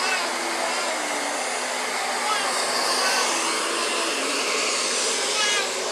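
Handheld hair dryer blowing steadily, a continuous rushing hiss of air.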